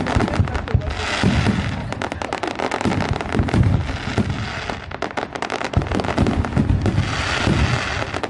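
Fireworks display: rapid, dense crackling with overlapping low booms from bursting shells, going on without a break.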